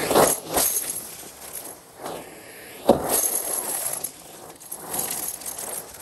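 Irregular clatter and rustling of small loose debris, with several sharp clicks and one louder hit about three seconds in.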